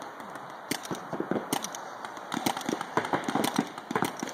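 Paintball markers firing: a run of sharp pops at irregular intervals, coming faster in the second half.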